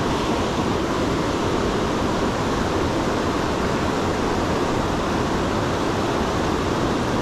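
Steady rushing of a river's rapids and whitewater, an even noise with no breaks.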